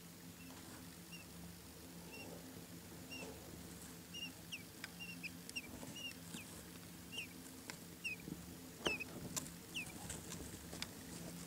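Quail chicks peeping: short, high, downward-sliding peeps, sparse at first and coming more often from about four seconds in, with a few faint clicks among them.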